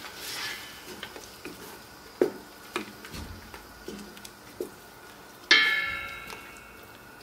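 Wooden spoon stirring a thick tomato and pepper mixture in a large stainless-steel pot, knocking against the pot several times. About five and a half seconds in, one loud ringing metallic clang dies away over a second or so.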